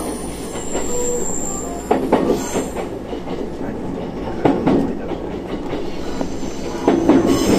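Train running noise heard from inside a passenger car: a steady rumble of wheels on rail, with pairs of clacks over rail joints about every two and a half seconds and a brief thin high squeal about a second in.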